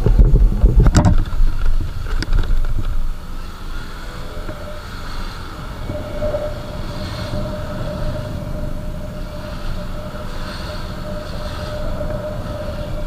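Motorcycle on the move, heard through the rider's camera microphone: wind buffeting and engine noise. It is loud and heavy with a few knocks for the first three seconds, then settles into a steadier drone with a held engine tone.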